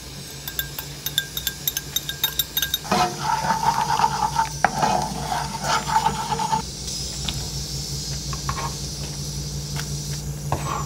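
Beaten egg poured into a nonstick frying pan, with a run of quick light clinks, then a wooden spatula scraping and stirring the egg in the pan on low heat for a few seconds. After that the egg sizzles steadily in the pan over a steady low hum.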